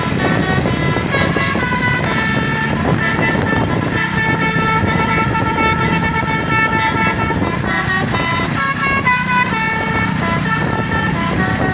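Bus basuri (telolet) musical horn playing a tune: a run of held notes switching pitch every fraction of a second to a second, over the steady running of the bus engine.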